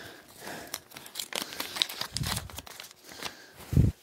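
A folded paper note being unfolded, crinkling and crackling in short clicks, with a single low thump near the end.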